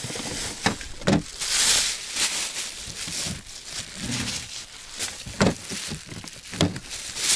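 A plastic bag rustling and crinkling, with short knocks and clicks as a plastic fishing box is handled.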